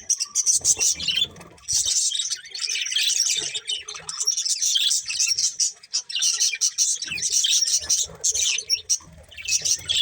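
Budgerigars chattering and chirping continuously, a rapid high-pitched warble in long stretches with brief lulls.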